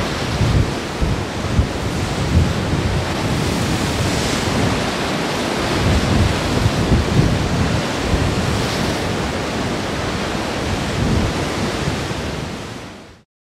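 Ocean surf breaking and washing on a rocky lava shoreline, with wind buffeting the microphone in irregular gusts. The sound fades out near the end.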